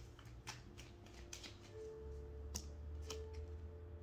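Tarot cards being handled and laid down: faint, irregular light clicks and snaps of card stock, over soft background music.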